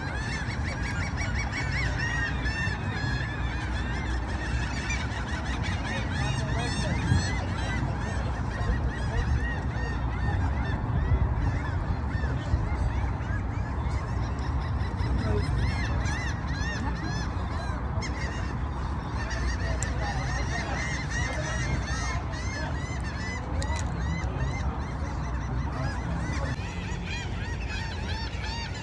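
A large flock of birds calling all together, a dense chorus of short, harsh, honking calls repeated over and over without a break, over a steady low rumble.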